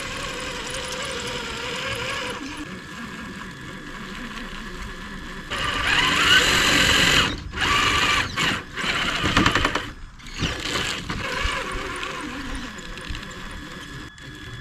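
Traxxas TRX-4 RC crawler's electric motor and geared drivetrain whining, driven on TRAXX tracks. The whine is steady at first, then comes in louder throttle bursts through the middle, one with a rising pitch, as the lugged tracks fight for grip on slippery snowy wood.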